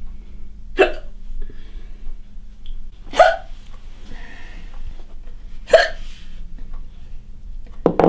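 A woman hiccupping, sharp and loud, about every two and a half seconds: three hiccups, with a fourth starting right at the end. These are persistent hiccups from a chronic condition.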